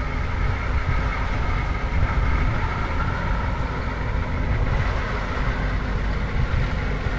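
A vehicle engine idling with a steady low rumble.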